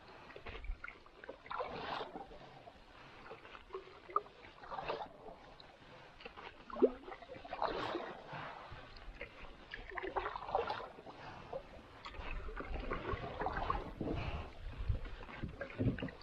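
Canoe paddle strokes: soft swishes of water off the paddle blade recurring about every three seconds, with a single sharp knock near the middle.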